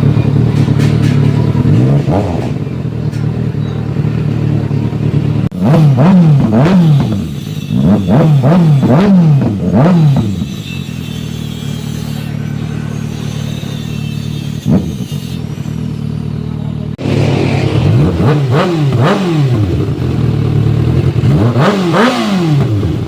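Kawasaki Ninja ZX-6R inline-four engine revving through an aftermarket exhaust with a re-made elbow pipe. It idles, then gives clusters of quick throttle blips that rise and fall, once a few seconds in and again near the end, with steady idling between.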